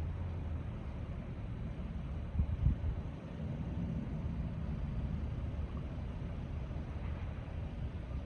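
Diesel locomotive engine running with a steady low rumble, with a couple of short thumps about two and a half seconds in.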